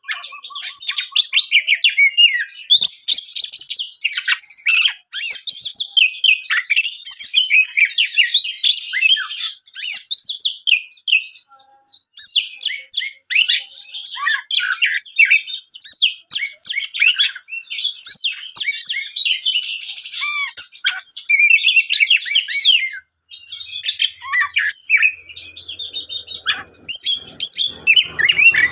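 Oriental magpie-robin (kacer) singing a fast, loud, varied song of high whistles, chirps and trills. It sings in the agitated, full-voiced way of a champion contest bird, with a few short pauses.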